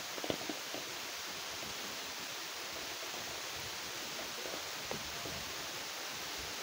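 Steady hiss with a few short clicks, the loudest about a third of a second in, as a plastic boba tea cup is handled close to the microphone.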